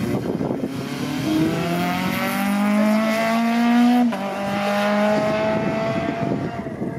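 Citroën C2 rally car accelerating hard past, its engine note climbing, then dropping sharply at an upshift about four seconds in. It then pulls on and fades as it drives away.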